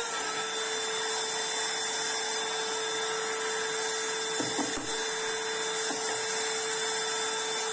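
Edge (trim) router mounted under a table, running steadily at one even pitch without cutting, with a few faint knocks from wood being handled about halfway through.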